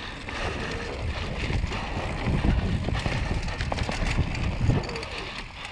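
Wind buffeting the microphone, with a low rumble and a few light clicks, as a mountain bike rides a dirt trail.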